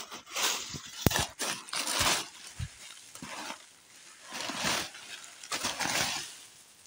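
Dry leaf litter rustling and crunching in repeated bursts as someone moves over the forest floor, with a few sharp snaps of twigs or leaves.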